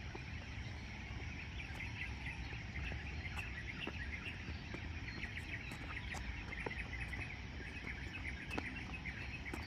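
A dense, steady chorus of insects chirping outdoors, over a low steady rumble.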